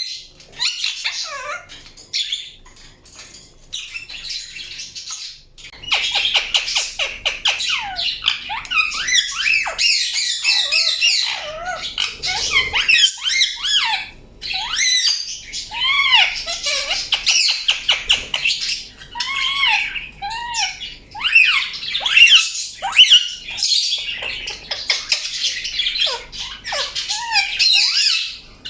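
Indian ringneck parakeet chirping and squawking in quick, shrill calls that sweep up and down in pitch. The calls are sparse and quieter for the first few seconds, then come thick and fast, with harsher squawks mixed in.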